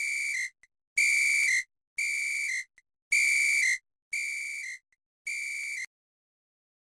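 A whistle sounding in a regular rhythm: six short blasts about a second apart, each held at one pitch and ending with a brief upward flick.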